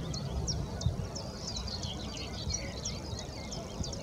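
Small songbirds singing, a dense run of short high chirps and sweeping notes, over a steady low rumble.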